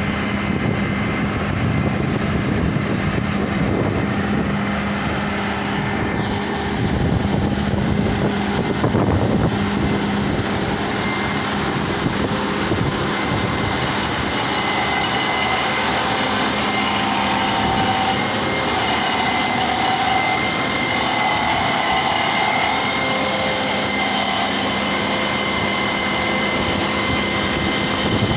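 Truck-mounted concrete pump running steadily, its engine humming with a higher whine joining about halfway through.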